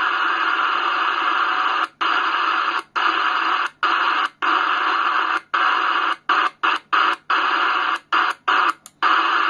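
CB radio receiver hissing with static on an empty channel. About a dozen brief, sudden dropouts cut the hiss, coming faster in the second half.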